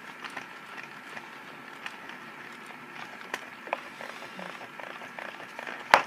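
Faint scattered clicks and ticks over low room noise, with one sharper click just before the end.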